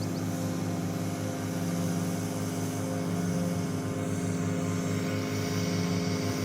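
Engine running steadily at constant speed: a low droning hum with a slow pulsing beat.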